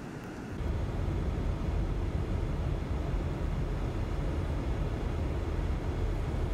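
High blizzard wind buffeting the microphone: a steady, deep rumbling noise that gets louder about half a second in.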